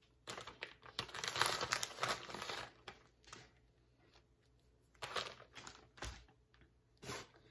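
Plastic bag of shredded cheese crinkling and rustling as cheese is sprinkled onto tortillas: a long stretch of rustling for the first few seconds, then a few short rustles and a low thump about six seconds in.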